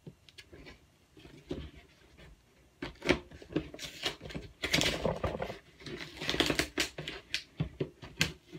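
Scissors cutting and prying through packing tape on a cardboard mailing box, with irregular scraping, snipping and crackling. It is sparse at first and gets busier and louder from about three seconds in. The box is heavily taped.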